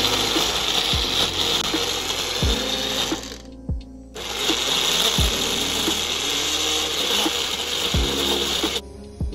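Electric mixer grinder running at speed, blending thick green chilli paste in its jar. It runs in two bursts, with a short stop about three and a half seconds in.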